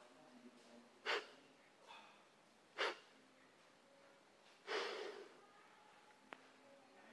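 A man breathing out sharply on each rep of dumbbell goblet squats: three short, forceful breaths a couple of seconds apart, the third one longer. There is a faint click about six seconds in.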